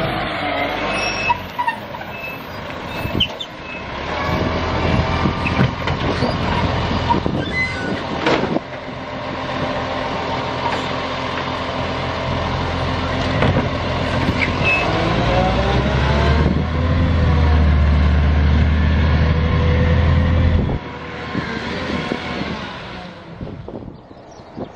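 Side-loading garbage truck's diesel engine running while its hydraulic arm handles a bin, with several sharp knocks. The engine then revs as the truck pulls away, and its low rumble carries on until it drops off to wind noise near the end.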